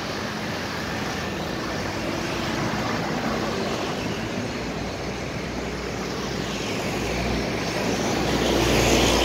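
Steady road traffic noise with a low rumble that grows louder over the last couple of seconds.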